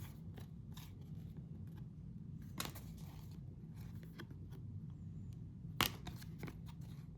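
Trading cards being handled and flipped through by hand: faint scattered clicks and slides of card stock, with two sharper snaps, one about two and a half seconds in and one near six seconds, over a low steady hum.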